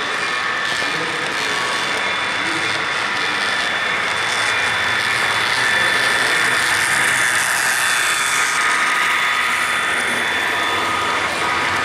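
Model freight train led by a BNSF diesel locomotive running past on the layout: a steady whirring rumble of motor and wheels on the rails, with a thin steady whine. It grows louder as the train comes close, about halfway through.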